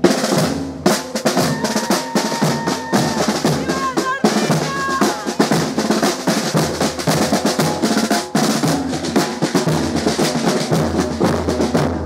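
Drums playing a dense, rapid rhythm of snare and bass drum strokes with rolls.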